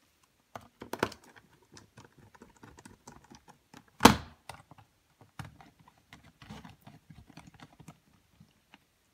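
Small scattered clicks and ticks of a precision screwdriver driving screws into the plastic back case of an Apple Newton MessagePad, with one loud knock about four seconds in as the unit is handled.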